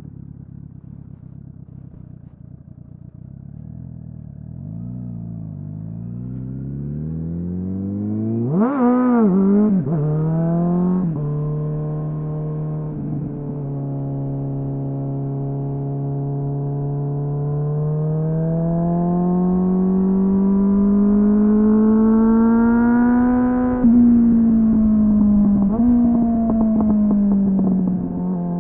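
A 2001 Suzuki GSF 600 Bandit's inline-four running through a slip-on exhaust fitted with a self-built dB-killer. It runs low and uneven at first, then revs sharply up and down at about nine seconds. After that it pulls steadily with the pitch slowly climbing, drops once about two-thirds of the way through, and climbs again near the end.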